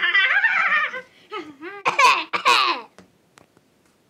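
People laughing hard in a run of giggles and a few loud bursts. The laughter dies away about three seconds in, leaving only a couple of faint clicks.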